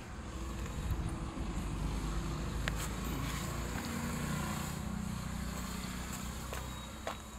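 Low, steady rumble of a motor vehicle's engine running nearby, with a hum that swells in the middle and then fades.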